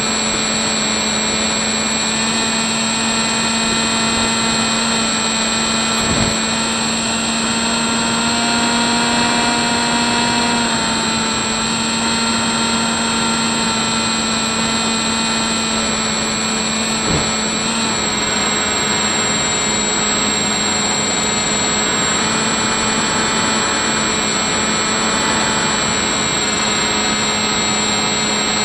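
Hubsan Spyhawk RC plane's electric motor and propeller whining steadily in flight, heard through the onboard Mobius camera's microphone over a rush of air. The pitch creeps up and then drops back about a third of the way in, and there are two short clicks.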